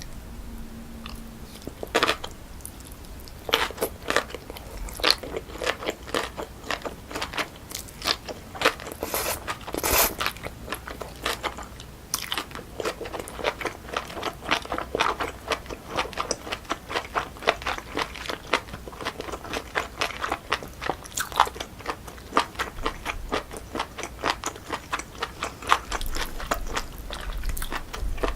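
Close-miked chewing of naengchae jokbal, cold boneless pork feet with jellyfish salad: a dense, irregular run of short sharp clicks and crackles from the mouth, starting about three seconds in after a quieter opening.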